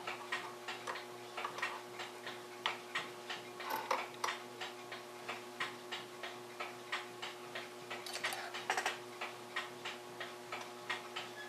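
A clock ticking steadily, about three ticks a second, over a faint steady hum. About eight seconds in there is a brief clatter of small metal parts being handled.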